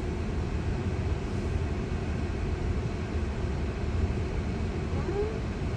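Steady low rumble of road and cabin noise inside an electric car, with no engine note.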